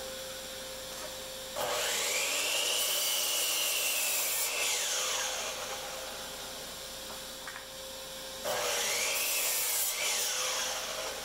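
GMC miter saw run twice, each time its motor whining up, cutting through a wooden board and winding down with a falling whine. A steady hum runs underneath throughout.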